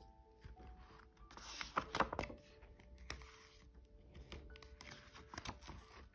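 Paper rustling and soft knocks as a hardcover picture book is opened and its pages turned, loudest about two seconds in, over quiet background music.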